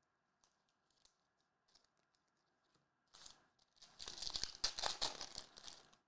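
A foil trading-card pack wrapper being torn open and crinkled: a short crinkle about three seconds in, then about two seconds of louder tearing and crackling, after a few faint ticks of cards being handled.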